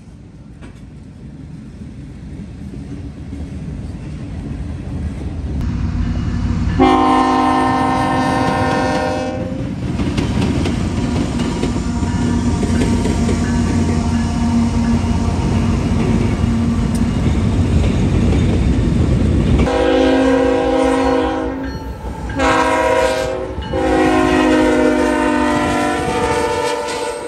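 GE diesel-electric freight locomotives rumbling past, sounding multi-note air horns: one long blast about seven seconds in, then several more blasts in the last third.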